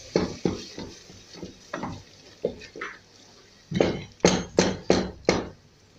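Wooden spatula stirring thick tomato sauce in a metal pot, its strokes scraping and knocking against the pot. A quicker run of five sharper knocks comes about four seconds in.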